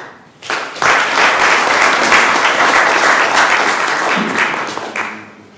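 Audience applauding: a burst of clapping that starts about half a second in, holds steady, and dies away near the end.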